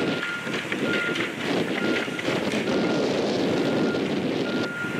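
Demolition excavator running, with cracking and crashing of wood and brick as its grapple tears into a building's roof. A machine's backup alarm beeps about once a second.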